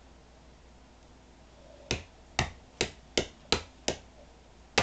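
A run of sharp knocks from something being struck against the hard plastic parts of a dismantled TV plug-and-play game console: six quick blows about two to three a second starting about two seconds in, then one more near the end.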